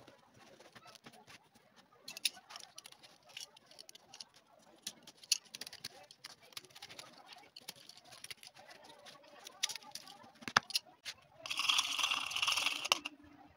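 Light, scattered clicks and scrapes as leather boot parts and a knife are handled on a workbench, then about a second and a half of dense, harsh scraping near the end as a sponge is worked around a small metal tin of shoe adhesive.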